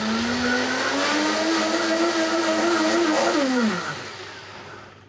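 Blendtec countertop blender running, puréeing cooked butternut squash until very smooth. The motor whine climbs in pitch over the first second, holds steady, then falls away about three and a half seconds in as the motor spins down and stops.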